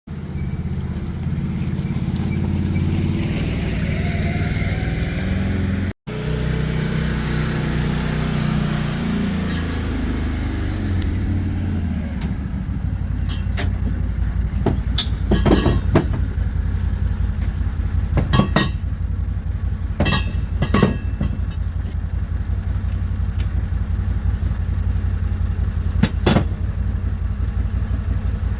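An engine running steadily with a low drone, with several sharp knocks or clanks in the second half.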